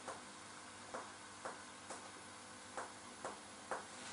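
Finger-on-finger percussion of the body: a middle finger tapping the pleximeter finger pressed against the skin, about seven faint, short taps roughly half a second to a second apart.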